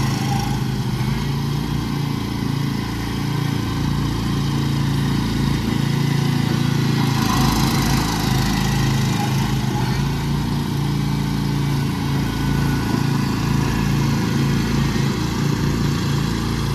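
Two riding lawn tractors, a Cub Cadet and a John Deere, with their engines running steadily under load as they pull against each other in a tug of war.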